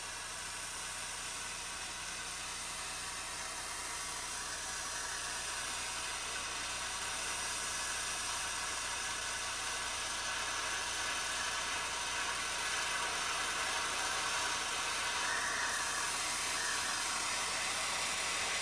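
Bernzomatic hand torch flame hissing steadily as it heats a brass clock barrel and ring so the solder will flow for sweat soldering. The hiss grows gradually louder.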